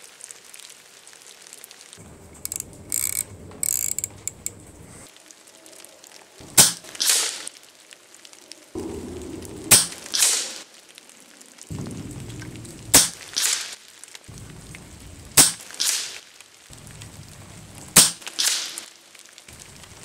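PCP air rifle (RTI Arms Priest 2) firing five shots at a steady pace, about one every two and a half to three seconds. Each sharp report is followed about half a second later by a softer second sound. A few light clicks come a few seconds before the first shot.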